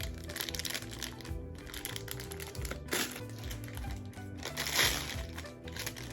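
Plastic packaging crinkling and rustling in irregular bursts as it is handled and pulled open, over background music.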